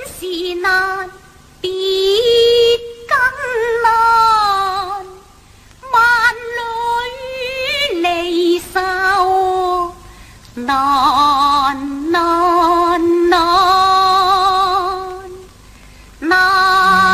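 A female Cantonese opera singer sings slow phrases of long held notes with a wide, wavering vibrato, separated by short pauses.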